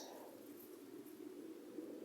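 Faint steady background noise with no bird calling: a low hum-like haze between songbird calls.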